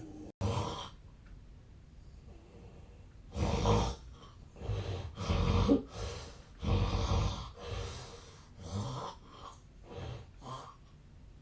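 A sleeping man snoring heavily, at close range. After a quieter spell there is a run of loud, rough snoring breaths about one a second, starting about three seconds in and growing weaker toward the end. Near the start there is a brief dropout where recordings are joined.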